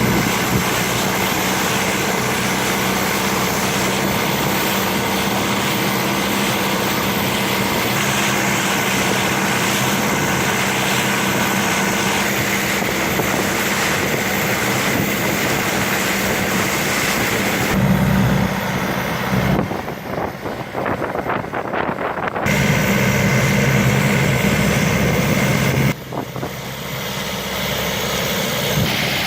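A boat engine running steadily. Twice in the second half the sound dips and changes briefly.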